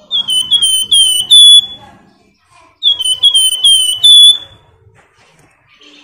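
Caged flamboyan songbird singing: two quick bursts of about five high, slurred whistled notes, each ending on a louder held note, the second starting about three seconds in.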